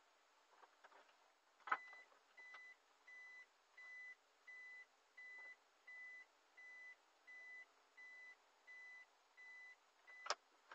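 A car's reverse-gear warning beeper sounding a steady run of about a dozen short high beeps, one roughly every three-quarters of a second, as the car backs up. A sharp click comes just before the beeping starts and another just after it stops.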